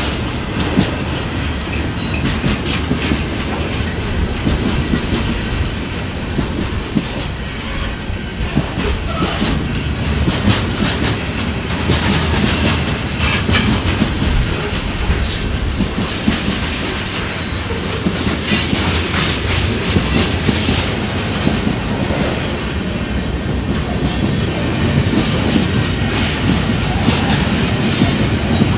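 Freight cars of a manifest train rolling past close by: a steady rumble of steel wheels on rail, with repeated clicking over rail joints and brief high wheel squeals now and then.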